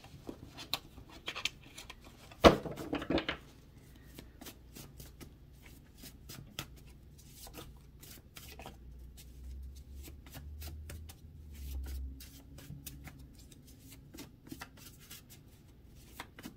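A deck of oracle cards being shuffled by hand, many light flicks and riffles of card stock, with one louder sharp knock about two and a half seconds in.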